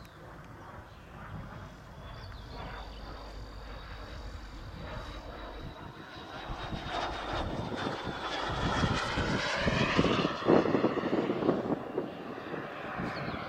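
Gas turbine of a quarter-scale Yak-130 RC jet model in flight: a high whine over rushing jet noise that grows steadily louder as the jet approaches. It is loudest about ten seconds in as it passes, the pitch sliding down, then eases off a little.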